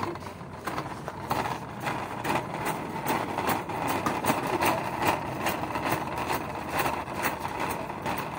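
Metal shopping cart rattling as it is pushed along a concrete floor, its wheels rolling with a run of irregular clicks and knocks.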